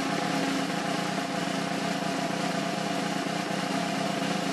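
Steady hockey-arena din: an even, hum-like background noise with no single event standing out.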